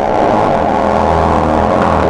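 A long, loud cartoon fart sound effect, held at a steady pitch without a break.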